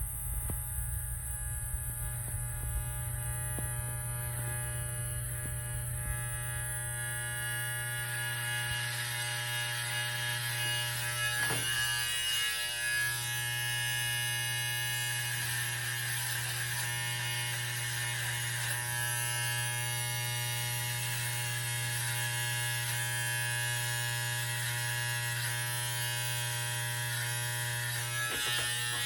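Andis T-Outliner hair trimmer running with a steady electric buzz as its newly set blade cuts a line along a beard. The sound turns brighter and scratchier about eight seconds in, with brief dips about twelve seconds in and near the end.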